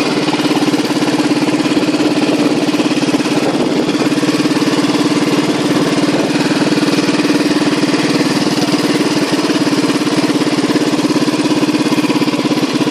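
A small engine running steadily at a constant speed, an unbroken hum with no revving.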